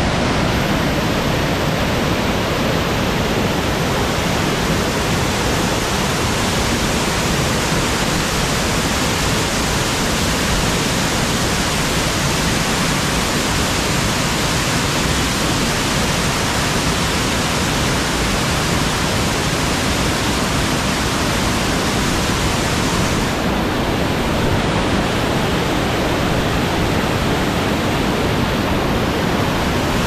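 A waterfall in full flow heard up close: heavy water pouring over rock ledges and churning into the pool below, a loud, steady rush.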